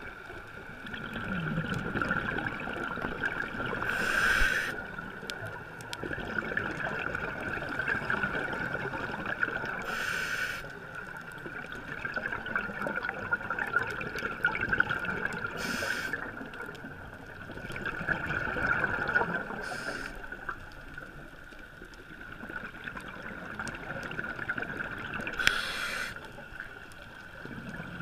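Scuba regulator breathing heard underwater: continuous bubbling and gurgling under a steady high whine, with five short rushing bursts of air spaced about five seconds apart.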